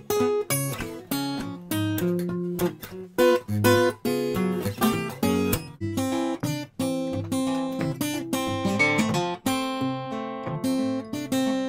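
Background music on acoustic guitar: a run of plucked and strummed notes at a lively pace.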